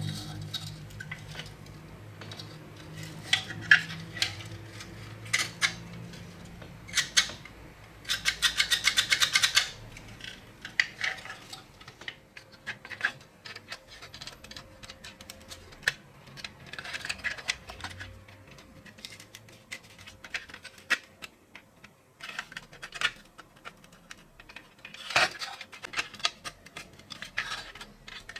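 Small metal parts and hand tools clinking, clicking and scraping during work on a rusty toy truck, with a fast rattling run of about ten clicks a second lasting about two seconds, a third of the way in.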